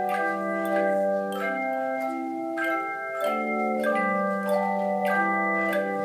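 An ensemble of handheld bell chimes playing a tune: notes struck one after another, about two a second, each left ringing so they overlap into chords over a sustained low note.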